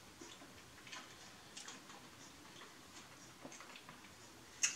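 Faint wet clicks and smacks of a person chewing a sub sandwich slowly with the mouth closed, irregularly spaced, with one sharper click near the end.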